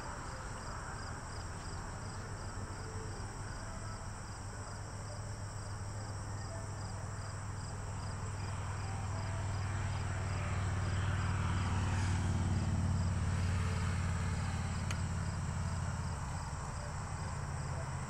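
Outdoor ambience: insects trilling high and steady, under a low rumble that swells about halfway through and then eases off.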